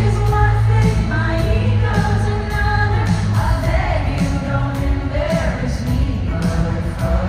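Live pop music at an arena concert: singing over a band with a heavy bass line.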